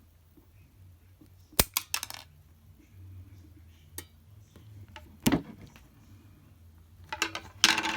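Metal hand tools and wire being handled: scattered sharp metallic clicks and clacks, with a quick cluster about a second and a half in, single knocks around four and five seconds in, and a dense run of clicks near the end.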